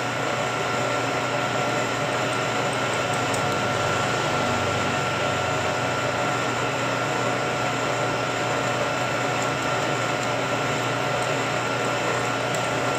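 Vertical milling machine running steadily, its end mill cutting a keyway into the hub of a hard metal impeller: a constant whine over an even machine hum.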